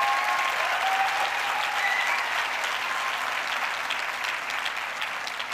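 A large theatre audience applauding, a dense patter of many hands clapping that gradually dies away toward the end.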